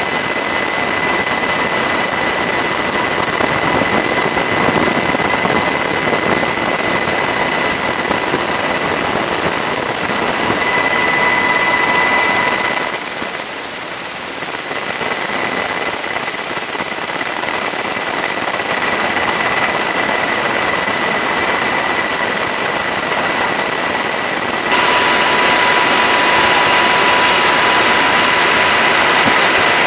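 Helicopter turbine and rotor noise heard from on board: a steady, loud noise with thin steady whining tones over it. The sound shifts in level and tone twice, about a third and about four-fifths of the way in.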